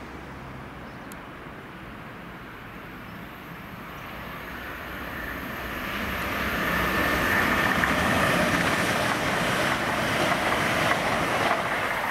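A train approaching through a station, its wheel and rail noise growing from about four seconds in and loud through the second half.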